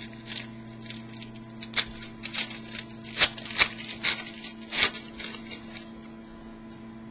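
Trading cards and their packaging being handled: a string of irregular rustles and sharp clicks, the loudest a little over three seconds in and again near five seconds.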